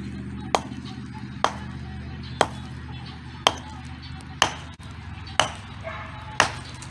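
Hand hammer striking rocks, seven sharp blows about a second apart, as stones are knocked down into the dirt.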